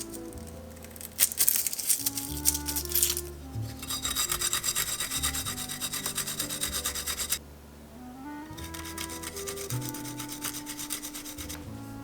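Rapid, evenly repeated rasping strokes in two runs, the first from about four seconds in and the second from about eight and a half seconds, over soft background music with sustained notes.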